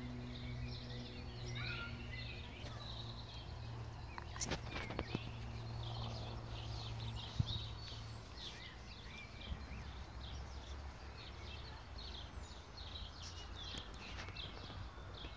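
Small birds chirping and singing on and off in open meadowland, over a steady low hum that fades out about eight seconds in. A few sharp clicks sound around the middle.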